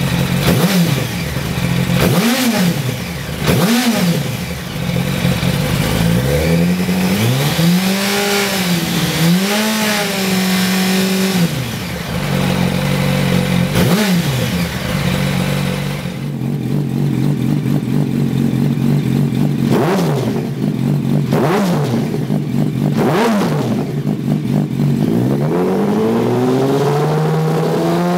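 2007 Yamaha YZF-R1's 998 cc inline-four breathing through its standard twin under-seat silencers. It idles steadily between a series of short, sharp throttle blips and one longer rev held for a few seconds about a third of the way in. Near the end it rises into another rev.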